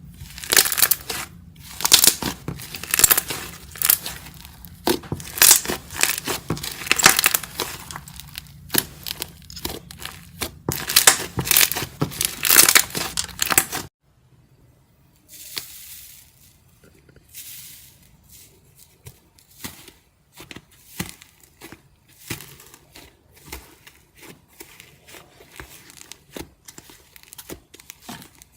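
Iceberg slime's hardened crust crackling and crunching as it is pressed and broken up, in dense bursts. About halfway through it cuts abruptly to quieter, sparser crackles and clicks.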